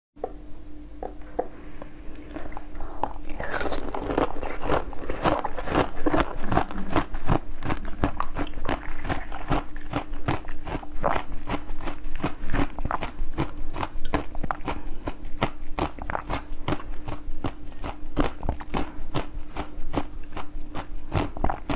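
A person bites and chews a green bird-shaped sweet, with many sharp clicks, several a second, starting a few seconds in. A faint steady hum runs underneath.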